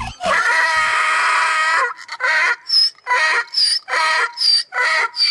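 An animal calling: one long pitched call, then a run of short repeated calls about two a second.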